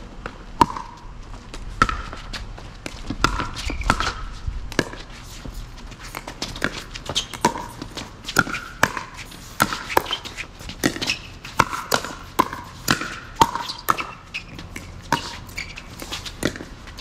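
Pickleball rally: a run of sharp, irregularly spaced pops from paddles hitting the plastic ball and the ball bouncing on the court, with short squeaks between the hits.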